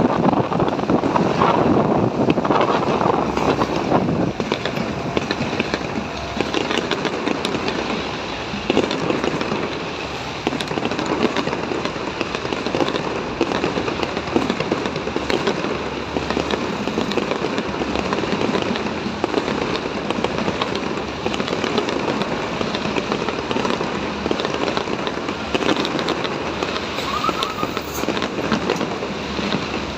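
Fireworks going off continuously: a dense, unbroken run of crackling and popping, with the rumble of wind and the ride on a phone microphone underneath.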